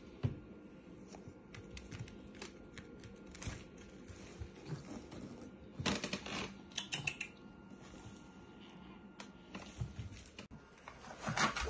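A kitten moving under a plastic-backed absorbent pad, making it crinkle and rustle: faint, irregular crackles and light taps, busiest about six seconds in.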